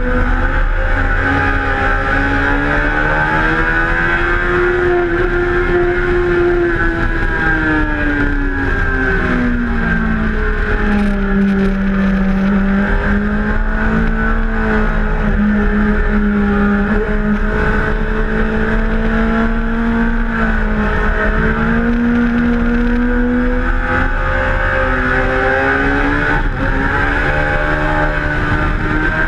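Suzuki GSX-R1000's inline-four engine running hard at speed, heard from on board, its pitch climbing, dropping back around ten seconds in and rising again near the end as the throttle is worked, with steady rushing noise underneath.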